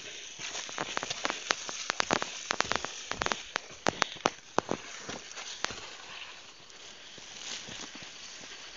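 Footsteps along a dirt trail through tall grass, with grass blades brushing and crackling against legs and the handheld phone. Dense sharp crackles for the first five or six seconds, then a softer rustle with only a few clicks.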